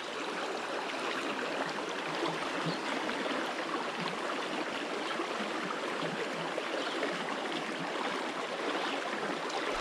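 Creek water running steadily, an even rushing hiss with no breaks.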